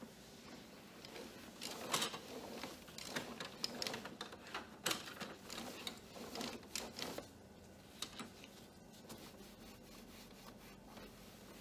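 Microfibre cloth rubbing and wiping over a printer's plastic control panel and casing, an irregular scratchy swishing with a few light clicks and taps, busiest in the first half and sparser after about seven seconds.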